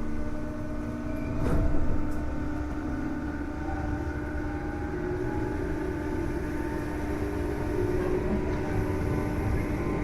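Tobu 8000 series resistor-controlled train running, heard from on board: motor whine slowly rising in pitch over steady rumbling running noise. A constant hum runs through it, the abnormal noise the recordist suspects comes from a faulty distribution panel, and there is a single sharp knock about two seconds in.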